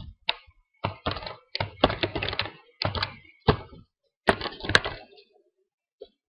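Computer keyboard being typed on: quick runs of sharp keystrokes in uneven bursts, then a pause of about a second near the end.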